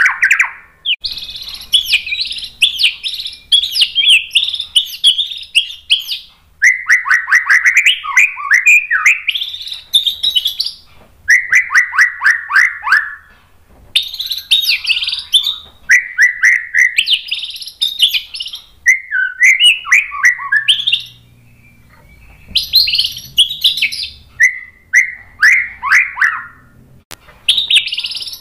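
White-rumped shama (murai batu) singing loudly: a run of song phrases of rapid repeated notes and quick pitch sweeps, each phrase one to three seconds long with short pauses between, and a longer pause about two-thirds of the way through.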